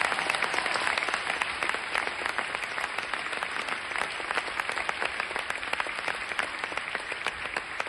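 Large audience applauding in a standing ovation: dense, steady clapping from many hands.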